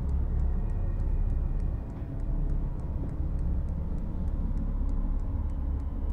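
A low, steady rumbling drone of horror-film sound design, with a faint, regular high ticking a few times a second running over it.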